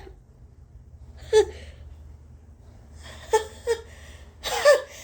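High-pitched sneeze buildup from a person: four short catches of breath, the last near the end longer and louder, as a sneeze builds.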